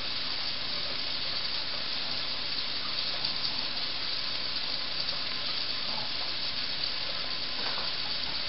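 Kitchen faucet running steadily into a stainless-steel sink, a constant even rush of water.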